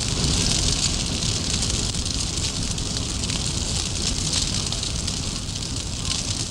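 Large timber fire burning steadily at the base of a chimney, a continuous crackling hiss over a low rumble. The fire is burning away the wooden props under the undercut base to bring the chimney down.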